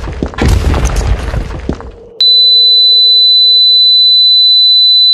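Loud crashing, shattering sound effect with several sharp hits, followed about two seconds in by a steady high-pitched ringing tone over a low hum, the film's ear-ringing effect.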